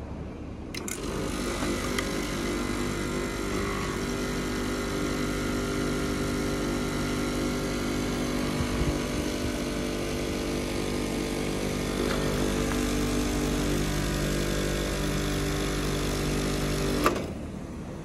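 Air-conditioner compressor in a Mitsubishi Electric outdoor unit starting with a click about a second in, running with a steady hum, then cutting off with a click near the end. It runs when started directly, so the compressor itself works, and the technician suspects the outdoor control board is faulty.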